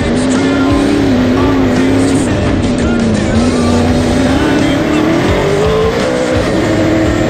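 Pro 4 short-course off-road race truck's engine running hard, heard from inside the cab, with a steady low rumble and the engine pitch climbing smoothly through the second half.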